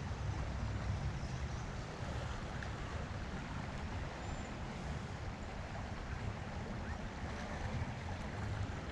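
Steady rush of a flowing creek, with a low rumble of wind on the microphone.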